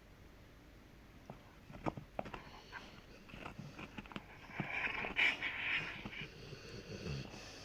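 Rottweiler gnawing on a dried hoof chew: scattered sharp clicks and cracks of teeth on the hard hoof, starting about a second in. A louder breathy stretch of the dog's breathing comes about halfway through.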